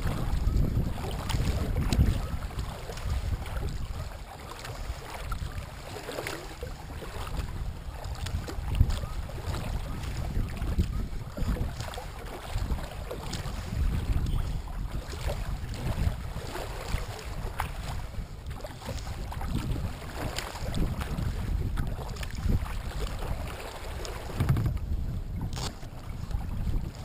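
Wind buffeting the microphone in a low rumble, with choppy lake water lapping and splashing against a kayak's hull.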